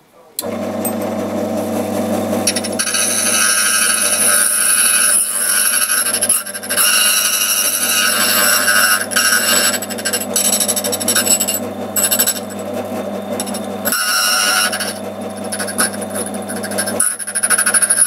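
Duplicating key machine's electric motor starting about half a second in and running steadily, with its cutter grinding a key blank from a few seconds in. The rasping cut comes and goes as the carriage is moved along the key.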